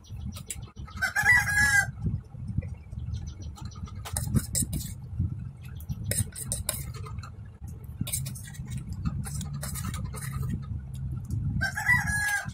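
A rooster crowing twice, once about a second in and again near the end, with light clicks in between.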